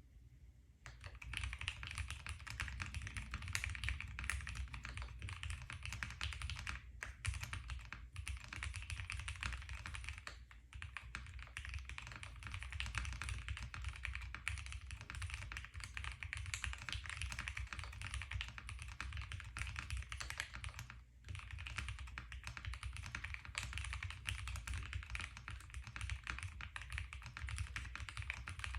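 Fast continuous typing on a custom Mr Suit mechanical keyboard: 43studio opblacks switches lubed with TriboSys 3204, ePBT Kuro Shiro PBT keycaps, Owlstabs stabilizers, and plate and case foam. The typing starts about a second in, with a few brief pauses.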